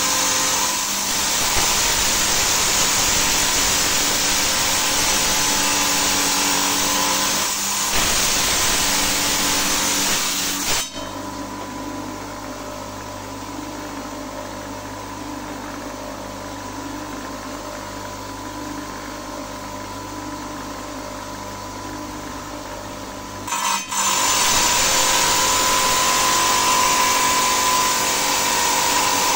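Small stone-cutting saw running, its blade grinding loudly through agate. From about 11 s in to about 24 s in, the grinding gives way to a quieter, steady motor hum, then the loud grinding returns.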